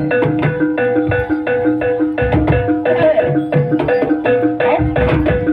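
Jaranan dance accompaniment music: gamelan-style metallic percussion struck in a fast, even beat over a held ringing note, with deeper drum strokes coming in about two seconds in and again near the end.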